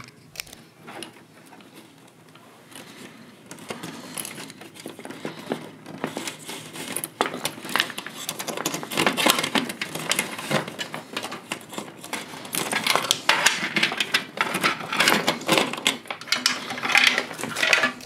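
SATA data cables being unplugged from hard drives and pulled out of a computer case: irregular plastic clicks, rattles and rustling of cables, sparse at first and busier from a few seconds in.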